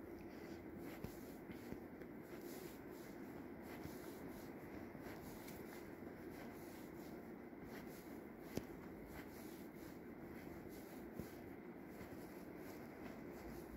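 Soft, regular footsteps walking along a carpeted aisle over a steady low hum, with one sharper tick a little past halfway.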